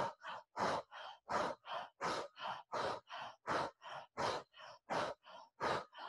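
A woman breathing hard and fast in and out through the mouth in a quick, energizing breathwork drill: an even rhythm of about three breath sounds a second, alternating louder and softer.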